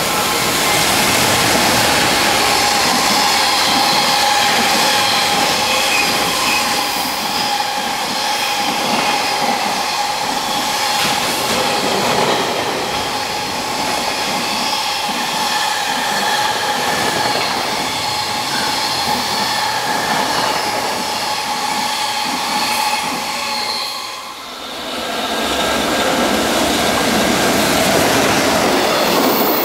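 Container freight trains passing at speed: wagons rumbling over the rails, with a steady high whine from the wheels. About 24 seconds in the sound dips briefly, then a second container train is heard passing.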